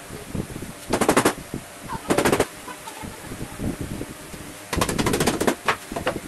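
Three quick trains of rapid sharp knocks: one about a second in, one about two seconds in, and a longer one near the end, as the wooden parts of a small pine bed frame and its plywood base are knocked together during assembly.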